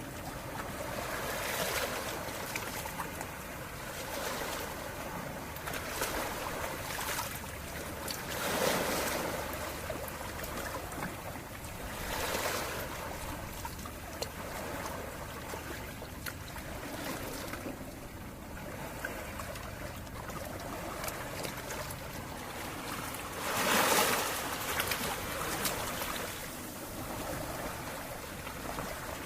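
Calm sea waves: a steady wash of water with a wave swelling and breaking every few seconds, the biggest about three-quarters of the way through.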